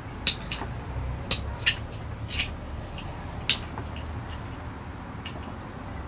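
Small sharp carving knife scraping and prising bark off the dry, brittle deadwood of a bird's nest spruce (Picea abies 'Nidiformis') bonsai. It makes short, crisp scrapes and clicks at uneven intervals over a steady low hum.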